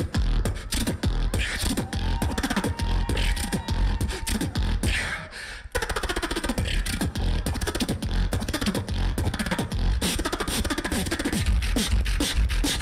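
Live beatboxing in a battle round: a fast, dense run of sharp click-like hits over heavy bass kicks, with a short held vocal tone a couple of seconds in.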